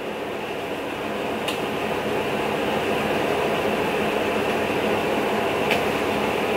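Steady rushing background noise that grows slightly louder after the first second, with a faint click twice.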